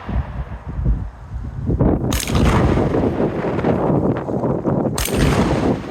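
Two shotgun blasts about three seconds apart, each a sharp crack with a short ring after it, fired while running a tactical shotgun match stage. Between the shots there is a continuous low rumbling noise.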